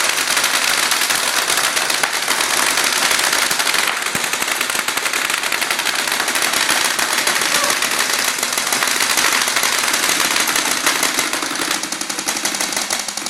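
Several airsoft guns firing full auto at once, a continuous stream of rapid shots that keeps up without a break.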